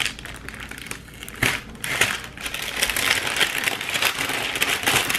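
Thin translucent paper sleeve crinkling and rustling as it is handled and peeled back from a sheet of stickers. The rustle is light at first, with one sharper crackle about a second and a half in, and grows denser and louder from about three seconds in.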